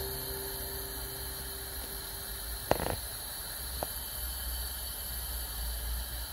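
A steady low hum and rumble, with a sharp click and brief rattle about two and a half seconds in and a fainter tick a second later. The tail of background music fades out in the first second or so.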